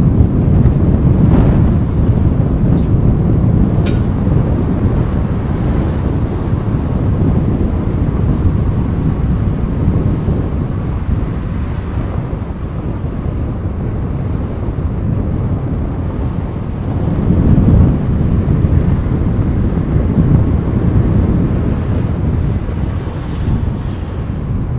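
A car driving along town streets: a loud, steady rumble of road and wind noise with wind buffeting the microphone. The noise swells briefly about two-thirds of the way through.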